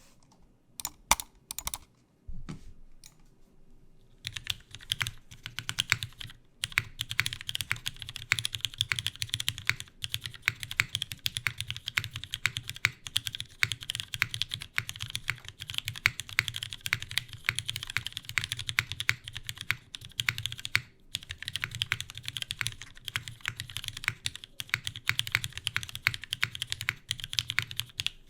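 Cruel World CW88 mechanical keyboard with lubed, filmed Cherry MX Vintage Black linear switches on a polycarbonate plate, with GMK keycaps, being typed on: a few single keystrokes at first, then fast continuous typing from about four seconds in, with a short break about three-quarters of the way through. A faint steady fan hum sits underneath.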